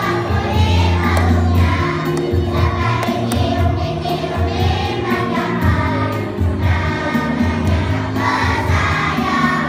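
A group of young children singing together over a recorded music backing track with a steady, pulsing bass line.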